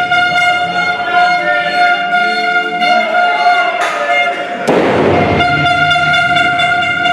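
Music with long held notes, broken about four and a half seconds in by one loud crash as a wrestler leaps from the top rope and lands on the ring canvas.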